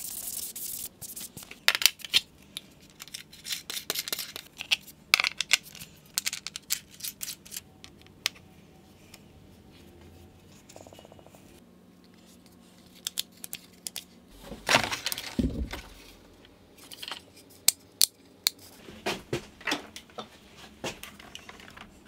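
Small metal panel-mount buttons, nuts and connectors being handled and fitted into a drilled plastic panel: scattered clicks and clinks of metal parts against plastic and the bench, with a heavier knock and rattle about fifteen seconds in.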